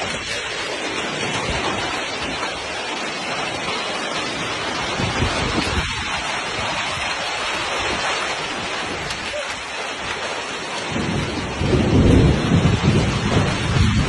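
Hailstorm: hail and rain falling steadily in a dense, even hiss. A louder low rumble comes in about twelve seconds in.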